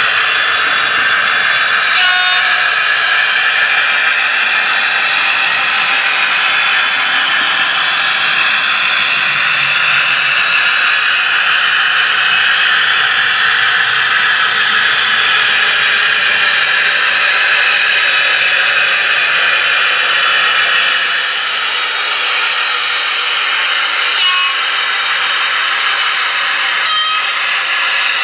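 H0-scale model trains running on the track: a steady rolling hiss and whir of wheels and motors with a thin high whine, broken by a few sharp clicks, once about two seconds in and twice near the end.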